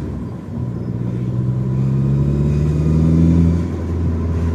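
Alfa Romeo GT 1.9 JTD four-cylinder turbodiesel engine rising slowly in revs from idle, then dropping back near the end. Under it runs a steady high-pitched squeal from near the common-rail pump. The squeal appeared after a turbo replacement, and the owner has ruled out an exhaust manifold leak.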